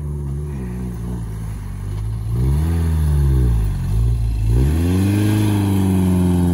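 Volkswagen Vanagon Westfalia van's engine pulling the van up a dirt slope. The revs climb about two seconds in, drop back, then climb again and hold near the end.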